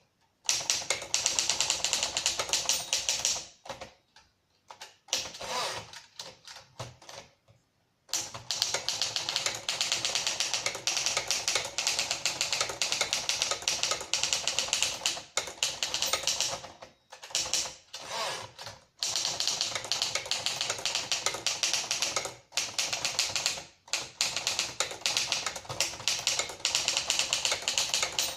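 1956 Remington Travel-Riter portable typewriter being typed on: rapid key strikes in long runs, broken by short pauses and a slower, sparser stretch a few seconds in.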